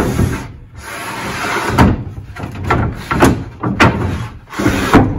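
A sheet of plywood scraping as it is slid across a wooden two-by-four frame, with several sharp knocks along the way.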